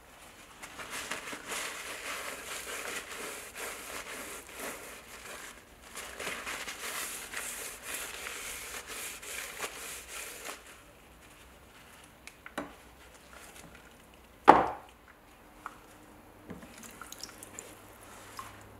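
Paper towel rubbed along a wet steel bayonet blade: a dense rustling scrub for about ten seconds with a short break midway. Then quieter handling with a few small clicks and one sharp knock about fourteen seconds in.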